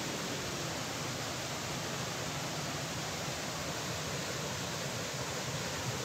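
Waterfall and white-water rapids rushing over rocks close by: a steady, even noise with no breaks.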